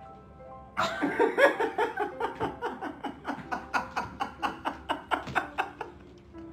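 A man laughing hard, starting about a second in, in quick repeated ha-ha pulses that trail off near the end. Soft background music can be heard before and after the laughter.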